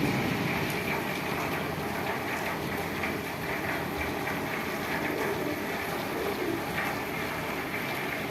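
Steady rain mixed with the rumble of vehicle noise.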